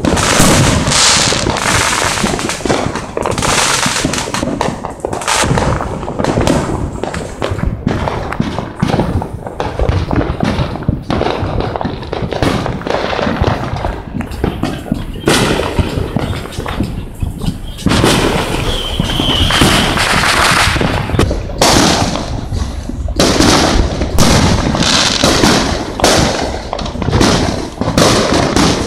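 Fireworks going off in a dense, continuous barrage: rapid overlapping bangs and crackling with hardly a pause.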